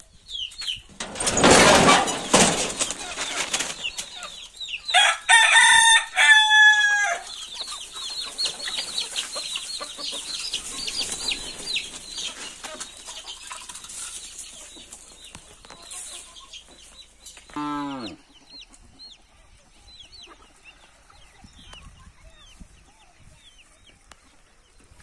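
A flock of chickens let out of the coop: a loud burst of noise with wings flapping in the first few seconds, then a rooster crows about five seconds in. Many soft, short peeps and clucks from hens and young birds follow, with one call falling in pitch a little after halfway.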